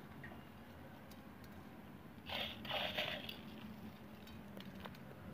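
Soft rustling of crisp fried bhujia sev being crumbled and sprinkled by hand over a plate of vadas, in two short bursts a little over two seconds in and near the middle, with a few faint ticks around them.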